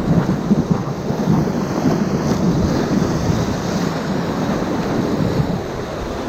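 Whitewater churning loudly and steadily around a raft surfing in a Class IV rapid's hole, with wind buffeting the microphone.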